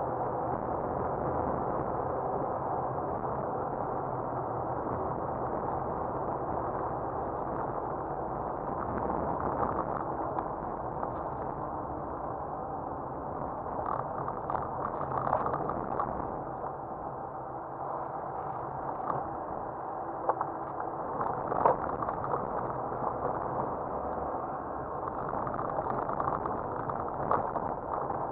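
Steady, muffled driving noise inside a car, heard through a dashcam: engine and tyres on a snow-covered road, with a few brief knocks near the end.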